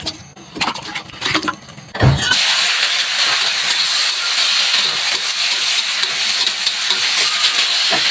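A few clicks and knocks of cookware, then a thump about two seconds in and a loud, steady sizzle as food goes into hot oil in a pan for stir-frying.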